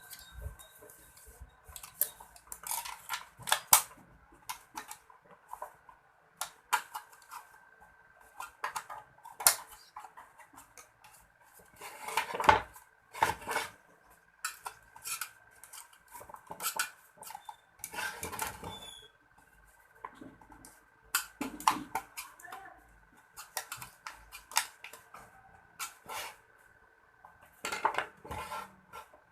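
Irregular metallic clinking and clattering of small metal parts being handled, in clusters of quick clicks with a faint steady high tone underneath.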